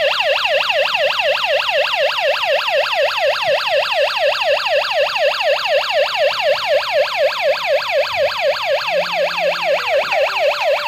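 Burglar alarm siren of a GS-G90E GSM alarm system sounding after a sensor is tripped while the system is armed, signalling an intrusion alarm. It is a loud electronic wail that sweeps up and down in pitch, about four to five times a second, without a break.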